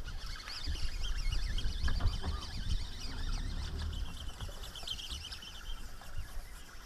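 Several birds chirping and singing throughout, many short wavering calls, over a steady low rumble.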